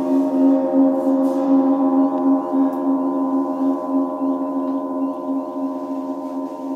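Large sun gong rubbed with a friction mallet: a sustained, wavering drone of several tones with faint high chirps, the gong's whale-song sound.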